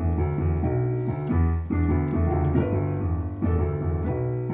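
Keyboard with a piano sound playing an instrumental passage: held chords over bass notes that change every second or so, with no singing.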